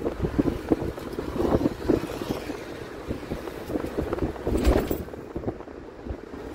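Wind buffeting the microphone over the noise of a moving vehicle, rising in irregular gusts, with the loudest surge about four and a half seconds in.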